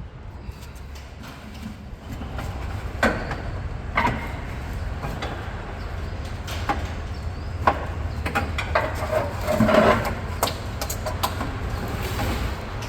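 Scattered sharp knocks and clanks of hand work on metal over a steady low rumble that grows louder about two seconds in.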